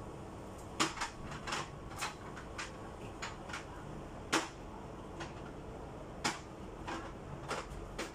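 Irregular light knocks and clicks of refrigerator parts and contents being handled and moved during cleaning, about a dozen in all, with three louder knocks among them.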